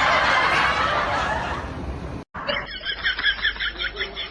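Laughter: a dense stretch of laughing, then, after an abrupt cut, a rapid high-pitched giggle pulsing about eight times a second.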